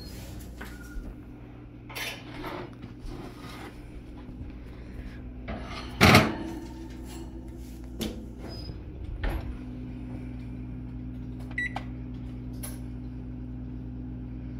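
Kitchen handling sounds: a handful of knocks and clunks, like a door or cookware being moved, over a steady appliance hum. The loudest knock comes about six seconds in.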